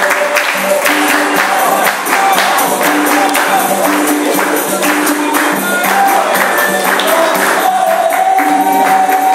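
Capoeira roda music: tambourine (pandeiro) jingles and hand claps keeping a steady beat under group singing.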